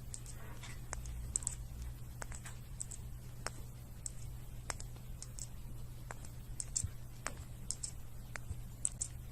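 Irregular light clicks and taps, a few each second, over a low steady hum.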